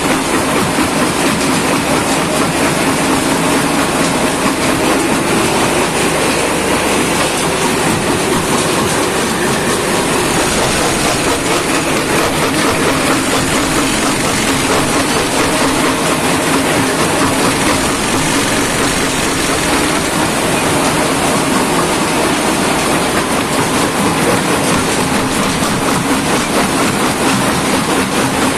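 Shanbao PE 250×400 jaw crusher running with stone in its jaws, being crushed. A loud, steady mechanical noise that holds even throughout.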